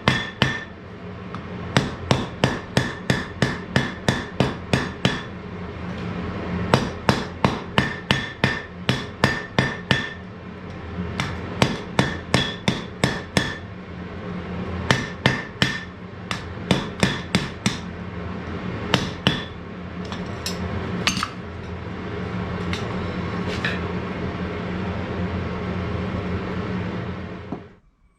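Blacksmith's hammer forging hot iron on an anvil: runs of sharp blows at about three a second, each with a short metallic ring, broken by brief pauses, over a steady hum. The blows thin out in the last part, and the sound cuts off suddenly near the end.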